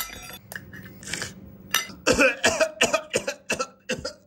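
A few clicks of a metal fork against a china plate, then from about two seconds in a man making a rapid series of coughing vocal sounds while eating.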